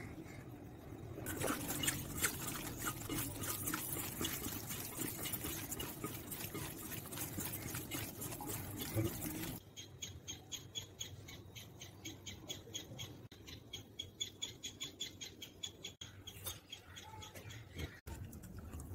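Wet squishing and crackling of raw meat strips being mixed by hand with salt, chilli powder and turmeric. This stops abruptly and a quick, regular high chirping takes over.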